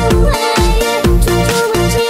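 Chinese pop song in an electronic dance (DJ) remix: a steady kick drum about twice a second under a synth melody, with no singing.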